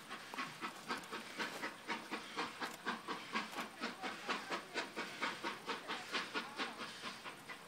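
Steam locomotive working, its exhaust chuffing in a quick, even rhythm of about four beats a second, fading out near the end.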